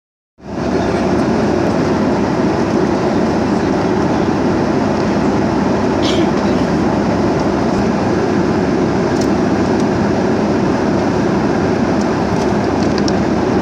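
Steady, even cabin noise of an airliner in flight, with engine and airflow noise heard from inside the passenger cabin.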